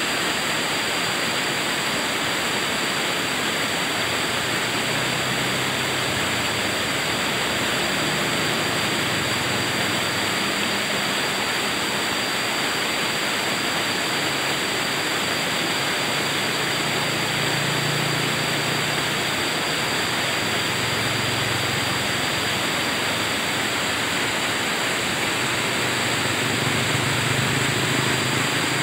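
Rapids of a rocky stream: white water rushing steadily over and around boulders.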